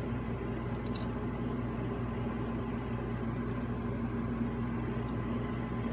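Steady machine hum with several held tones, with a faint click or two.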